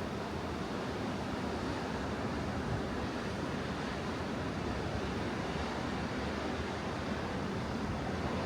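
Atlantic Ocean surf on a beach: a steady, even wash of breaking waves with no single crash standing out.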